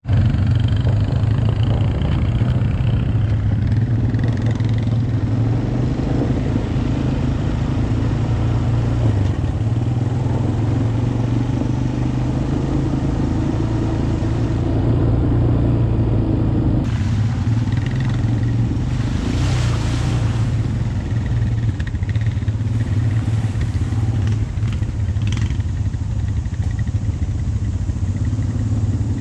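Four-wheeler (ATV) engine running steadily under way, heard from the rider's seat as a low, even drone. A short rushing noise rises over it about two-thirds of the way through.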